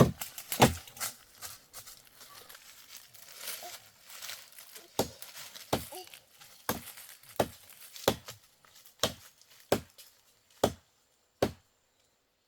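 Tree being chopped down by hand: a few seconds of rustling leaves and branches, then nine evenly spaced blows into the trunk, a little more than one a second.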